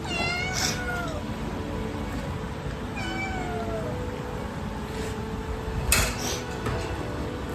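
A cat meowing twice, each meow sliding down in pitch, the first longer than the second. A sharp click about six seconds in.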